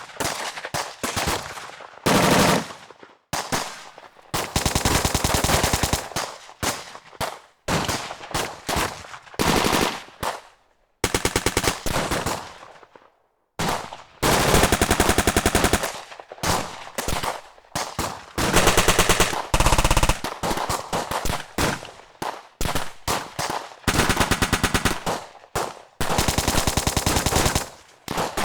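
Bursts of rapid automatic gunfire, machine-gun style: rapid shots in runs from under a second to about two seconds long, with brief pauses between bursts.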